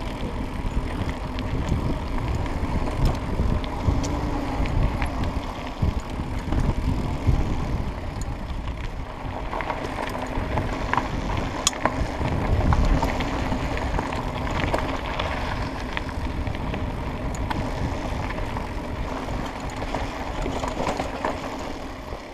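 Mountain bike riding along a dirt singletrack trail: steady rolling tyre and trail noise with a low rumble, and scattered clicks and rattles from the bike over bumps.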